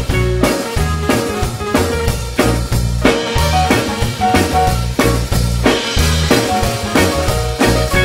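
Live reggae band playing an instrumental passage: drum kit, bass guitar, electric guitars and keyboards with a steady beat about two strokes a second.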